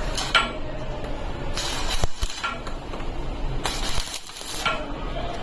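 Steel parts clinking and scraping against each other, with a few sharp metallic knocks about two seconds in and again near four seconds.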